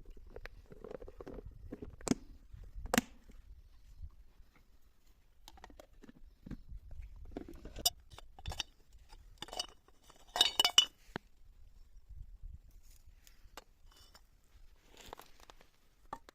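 Dishes and glassware being handled: scattered knocks and clinks, the loudest a quick cluster of ringing, glassy clinks about ten seconds in.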